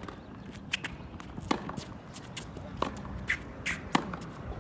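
Tennis rally on a hard court: several sharp pops of racquets striking the ball and the ball bouncing, roughly a second apart, with sneakers shuffling and scuffing on the court surface between shots.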